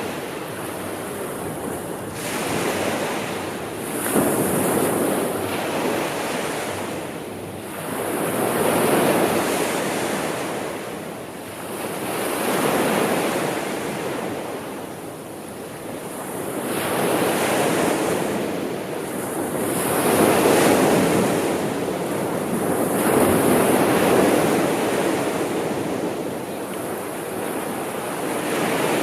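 Sea waves breaking and washing ashore, swelling and fading every three to five seconds.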